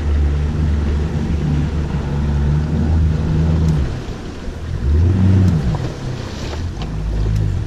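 Boat outboard motor running at low speed. About five seconds in it revs up briefly and then settles back down.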